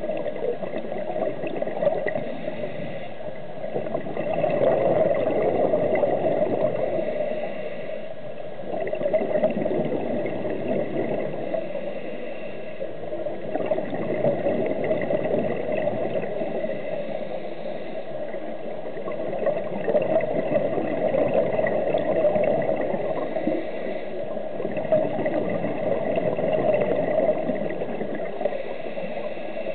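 Scuba diver's breathing heard underwater: bubbles gurgling out of the regulator, swelling and fading in slow waves about every five seconds, over a faint steady tone.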